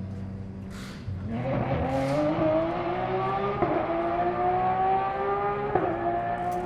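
Porsche 992 GT3 R race car's flat-six engine, a low steady drone at first, then accelerating hard from about a second in with its pitch climbing, and two quick upshifts about halfway through and shortly before the end.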